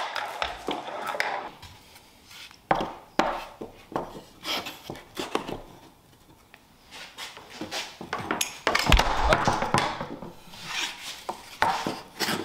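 Plywood parts of a marble-track loop being handled on a plywood workbench: irregular wooden knocks and clicks, with stretches of rubbing and scraping as the pieces are slid together.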